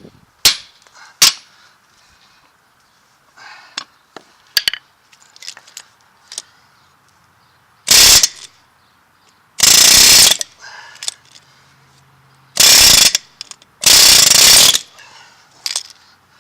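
Pneumatic air hammer with a chisel bit run in four short bursts on a rust-seized U-joint bearing cap, after a few sharp metal knocks early on.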